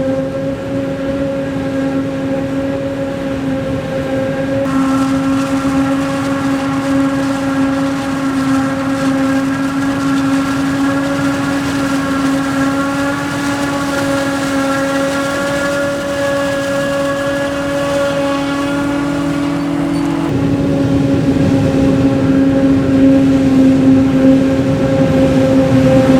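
Maize-harvesting machinery running steadily, a constant pitched whine over engine drone. The mix of tones changes abruptly about five and twenty seconds in.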